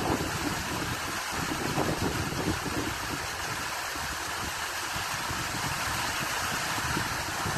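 Turbulent stream water churning and rushing as white water, a steady rush with an uneven low rumble underneath.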